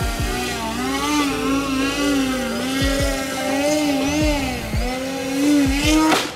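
RC floatplane's motor and propeller whining, the pitch wavering up and down as the throttle and flight path change. Near the end a sharp hit as the plane strikes the water, and the motor sound cuts off.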